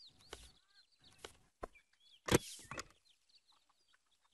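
Laptop keyboard keys clicking, about six separate taps with gaps between them, the loudest about two seconds in, over faint background bird chirps.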